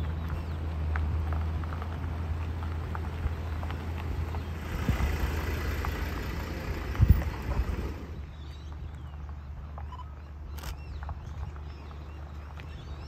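A Subaru car drives slowly past close by on a gravel lane, its engine a low steady hum and its tyres crunching on the gravel, with a sharp thump about seven seconds in. After it has gone, quieter footsteps on gravel.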